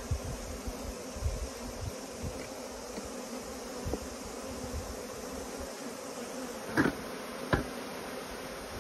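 Honeybees buzzing steadily around an opened hive during the honey harvest. Two sharp knocks sound close together near the end.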